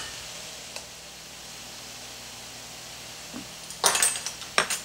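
Ground beef and vegetables sizzling steadily in a skillet, with a few sharp taps of a spoon against the pan near the end.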